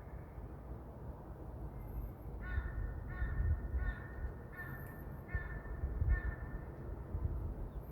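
An animal calling about six times in quick succession, a short pitched call roughly every two-thirds of a second, over a steady low background rumble.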